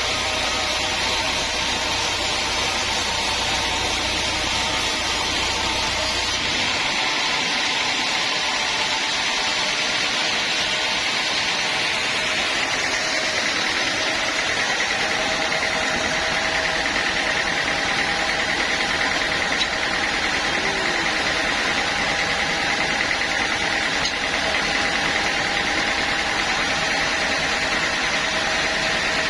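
Sawmill machinery running steadily. A deep low hum drops out about six seconds in, and a higher-pitched whine builds up in the second half.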